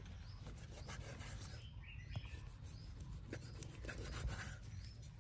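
Knife rubbing and scraping through the flesh of a large hairtail fish as it is filleted off the backbone, a few faint strokes. Faint high chirps repeat in the background.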